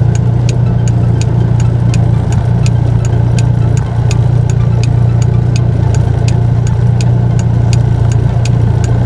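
Strong gusty wind blowing hard across the microphone, a loud, steady low rumble, with a fast, regular ticking over it.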